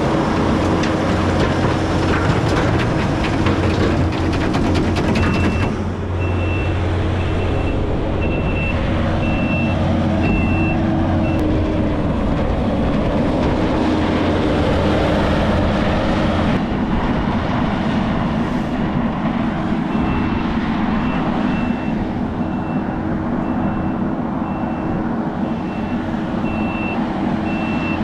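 A heavy vehicle's engine running steadily while its reversing alarm beeps at an even pace, a little over once a second. The beeping runs from about five seconds in to about eleven seconds, then starts again about twenty seconds in.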